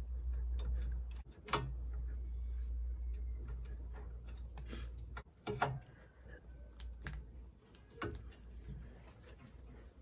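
Sharp metallic clicks and knocks from a 19 mm socket and breaker bar on the caliper bracket bolts as they are slackened: three louder strokes among smaller ticks, over a low steady hum that stops about halfway through.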